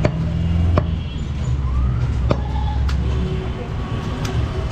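Heavy butcher's knife chopping goat meat on a round wooden chopping block: about four sharp, unevenly spaced chops. Under them runs a steady low engine rumble from traffic.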